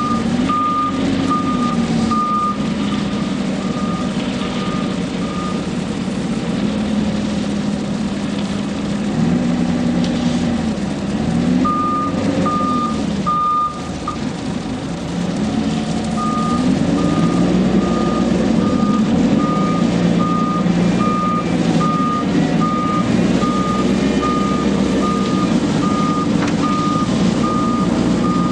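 Self-loading concrete mixer truck's diesel engine running and revving up and down repeatedly, with its reversing alarm beeping about twice a second. The beeping stops twice for a few seconds, once in the first half and once near the middle.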